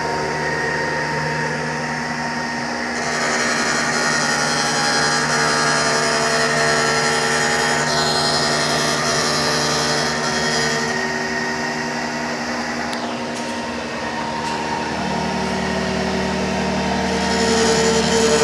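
CNC grinding machine running: a steady machine whine made of several held tones over a noisy hiss, its pitch and mix changing every few seconds as the machine works.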